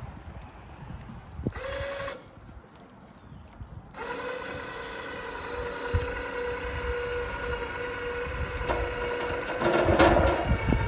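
Small crane's electric hoist motor running with a steady whine as it lifts a tangle of shopping carts: a short run about one and a half seconds in, then a continuous run from about four seconds. A louder rattling near the end as the metal carts come up to the railing.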